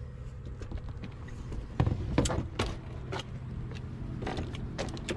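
Clicks and knocks of a DYU S2 folding electric bike being unfolded by hand, its stem and frame hinges and latches clacking into place: several sharp strokes, the loudest about two seconds in, over a steady low hum.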